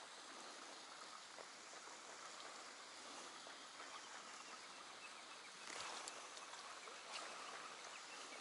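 Near silence: faint steady outdoor hiss on open water, with a brief soft rustle about six seconds in and a faint click a little later.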